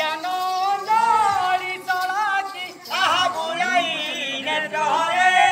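A man singing a Sambalpuri Ramayan kirtan: short melodic phrases of about a second each, several ending on a held note.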